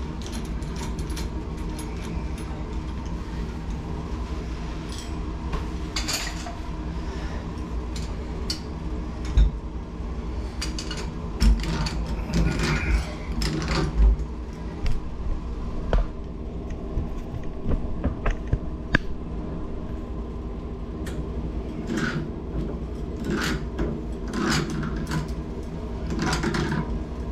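Tongue-and-groove pliers clicking and scraping on a shower valve's metal stem and cartridge, in scattered sharp clicks, over a steady low hum.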